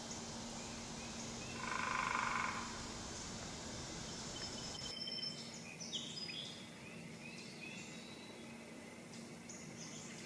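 Quiet woodland ambience over a faint steady hum: one buzzy animal call lasting about a second, about two seconds in, then scattered short, high bird chirps in the second half.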